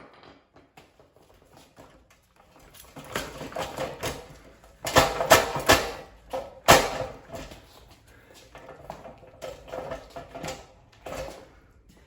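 Irregular knocks and cracks of a ceiling fan being struck and broken apart, with a cluster of hard blows about five to seven seconds in and lighter clattering before and after.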